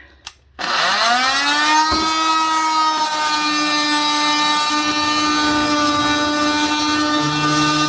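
Electric oscillating multi-tool switched on, its motor whine rising quickly to full speed and then running steadily, ready to cut out bathroom wall tile. A lower hum joins in near the end.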